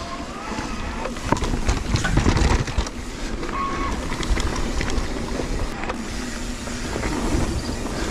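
Mountain bike descending loose dirt singletrack: tyre noise on the dirt and wind rush on the bike-mounted camera, with the bike rattling and knocking over bumps, loudest about two seconds in. A brief squeal sounds once about three and a half seconds in.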